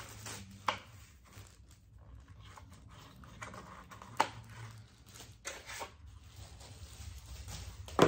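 Packaging rustling and plastic vacuum parts being handled and set down, with scattered light clicks and two sharp knocks, one just under a second in and one about four seconds in.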